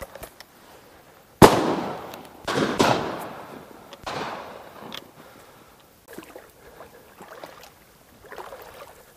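Shotgun shots during a duck hunt: four reports in about three seconds, the first the loudest, each trailing off in a long rolling echo.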